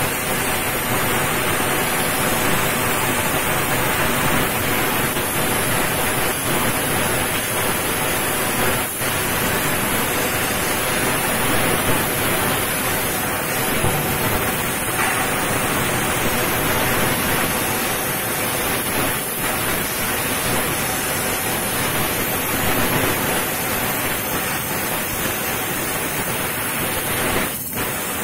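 Fiber laser cutting machine cutting sheet metal: a steady rushing hiss with a faint hum beneath it.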